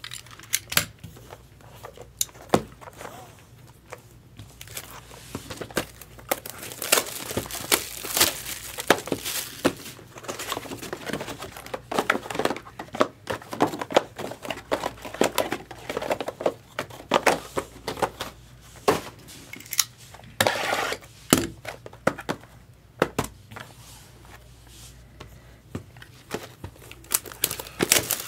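Trading-card packaging being handled, crinkled and torn open: an irregular run of crackling and rustling, busiest through the middle.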